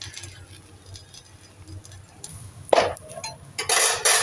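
Metal spatula clinking against an iron tawa: one sharp clink a little before three seconds in, then a longer clattering burst near the end.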